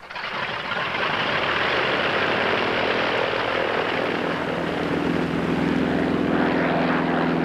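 Piston engine and propeller of a V-tail Beechcraft Bonanza running loud and steady, coming in suddenly at the start.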